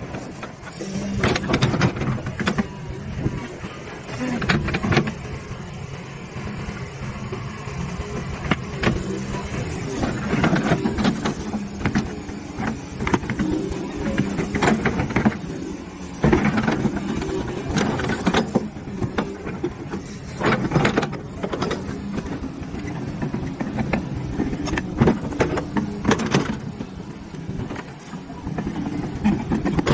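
LiuGong crawler excavator working dirt: its diesel engine runs, rising and falling with the load, under many sharp clanks and knocks from the steel tracks and bucket.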